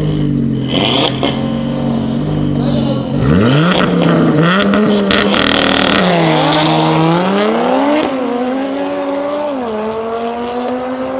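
A Volkswagen Golf 7R fitted with an Audi RS3 turbocharged five-cylinder engine and a tuned Audi RS3 sedan launch side by side in a drag race. Both engines are held at steady raised revs on the line, with sharp cracks. About three seconds in they launch: the revs sweep up, then the pitch climbs and falls back at each upshift, roughly every two seconds, as the cars pull away.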